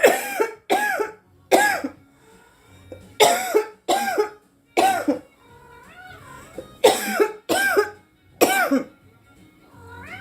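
A woman's coughing fit: about a dozen harsh, voiced coughs in three bouts of four, with short pauses between bouts, after she has inhaled too large a hit of cannabis smoke.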